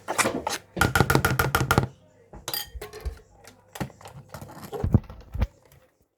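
Pancake batter being beaten in a bowl: a utensil clicks rapidly against the bowl, in a fast run about a second in, then in scattered knocks.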